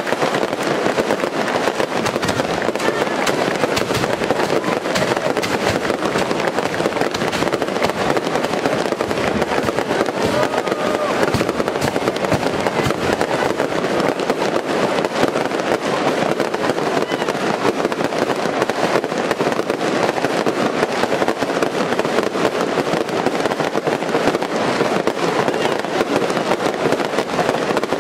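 Daytime fireworks barrage: a dense, continuous crackle of many firecracker bangs going off rapidly one after another, with no pause.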